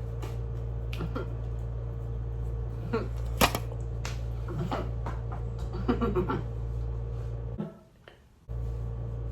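Steady low electrical hum with scattered small clicks and taps. Everything cuts out to near silence for under a second, about eight seconds in, then the hum returns.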